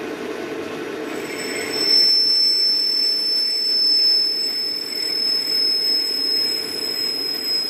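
Carbide lathe tool boring a phosphor bronze bushing, giving a steady high-pitched squeal that starts about a second in, over the lathe's running hum.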